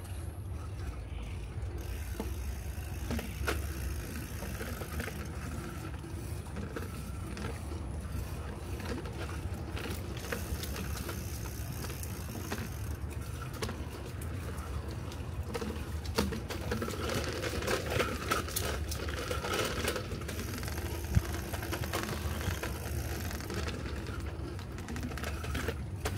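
Bicycle being ridden: a steady low rumble of tyres rolling on the path, with scattered light clicks and rattles that grow busier and crackly partway through.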